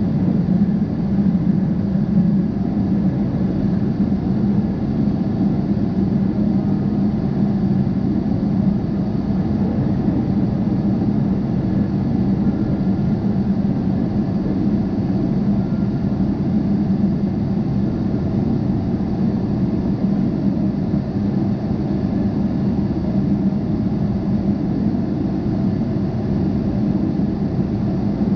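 Steady cabin drone of a jet airliner in flight, heard inside the cabin beside the wing: engine noise and rushing air, even and unchanging throughout, as the aircraft descends through cloud.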